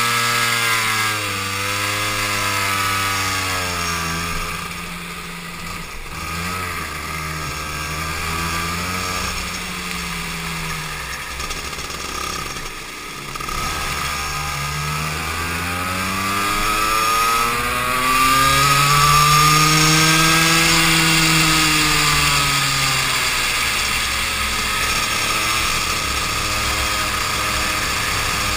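Go-kart engine heard from on board, its pitch repeatedly climbing and dropping with the throttle as the kart laps, loudest in one long climb and fall about twenty seconds in. A steady rush of wind noise runs underneath.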